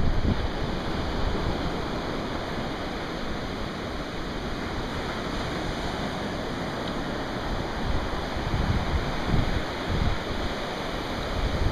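Sea surf breaking and washing up a sandy beach: a steady rush of water, swelling a little near the end.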